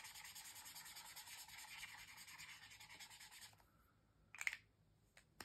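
Tombow dual brush pen scribbled back and forth on sketchbook paper, laying down a colour swatch: a faint, rapid, scratchy rubbing that stops about three and a half seconds in. Near the end comes a short soft rustle and then a small click.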